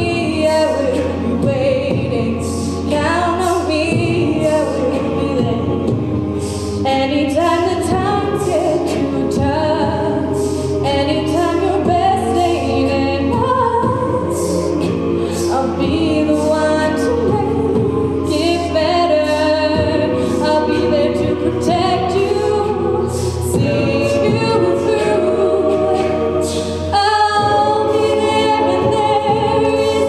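Mixed-voice a cappella group singing a pop mashup through microphones: a solo voice over sung backing chords, with vocal percussion keeping a steady beat.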